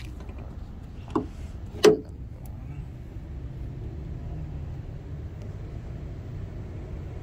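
Car hood being opened on a 2014 Toyota Prius Plug-in: two sharp metal clunks about a second apart as the latch lets go and the hood is raised, over a steady low rumble.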